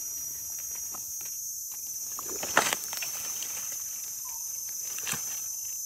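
Dry leaf litter and twigs rustling and crackling in short, scattered bursts as a hand reaches in to pick mushrooms, the loudest crackle about two and a half seconds in. A steady high insect drone runs underneath.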